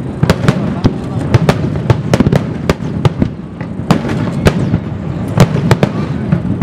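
Aerial firework shells bursting in a dense finale barrage: irregular sharp bangs, two or three a second, over a continuous rumble of overlapping explosions.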